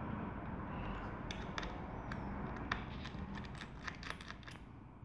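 Light clicks and taps of a precision screwdriver and small steel screws as the battery screws of a MacBook Air 13" are worked out, a cluster of sharp ticks through the middle of the stretch, over a steady low background hum.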